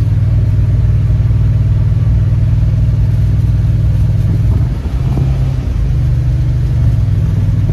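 Steady, loud low rumble of engine and road noise inside the cabin of a moving truck, its tone shifting briefly about five seconds in.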